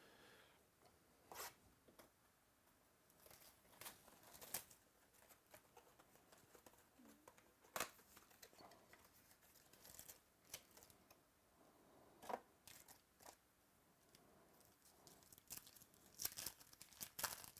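Faint, scattered tearing and crinkling of packaging as a sealed box of trading cards is opened, the sharper rustles coming every few seconds and bunching together near the end.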